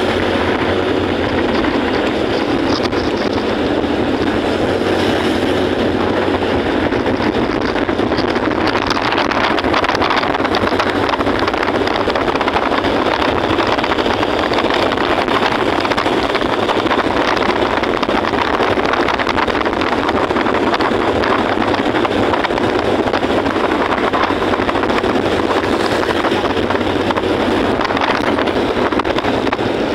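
Steady riding noise of a motorcycle under way: wind rushing over the microphone, mixed with the engine and road noise.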